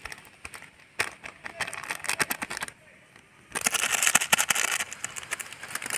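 Scattered light clicks and crackles, a short lull, then a dense dry rustling and crackling from about three and a half seconds in.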